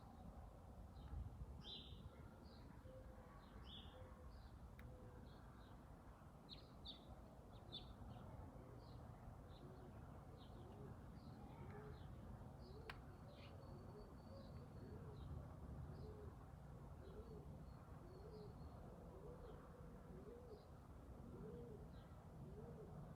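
Faint birdsong: short high chirps throughout, and from about halfway a low call repeated roughly once a second.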